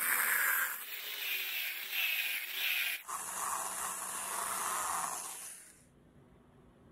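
Angle grinder with a sanding disc sanding a wooden knife handle, then the flat of a steel knife blade: a steady, mostly high-pitched grinding noise. It breaks off sharply about three seconds in and starts again on the blade, then fades out near six seconds.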